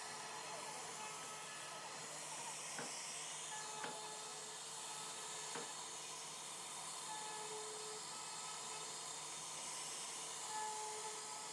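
CNC router running while carving wood: a steady high hiss with faint steady whine tones and a few light clicks.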